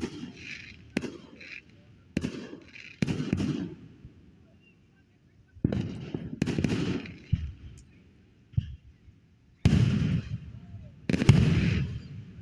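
Aerial fireworks bursting: a series of sharp bangs, each trailing off in a low rumble, with short lulls between volleys and the loudest bursts near the end.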